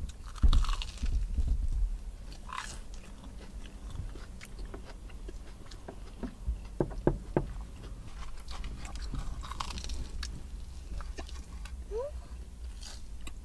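Close-up biting and chewing of a cheese corn dog with a crispy, crunchy coating: crackling crunches and wet mouth clicks, loudest at a bite about half a second in, with a few sharp crunches around the middle.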